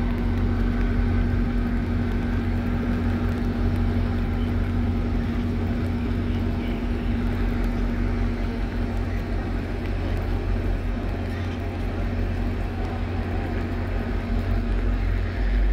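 Distant NJ Transit GP40PH-2 diesel locomotive running as it pushes a disabled train away: a low, steady rumble with a hum that fades about halfway through.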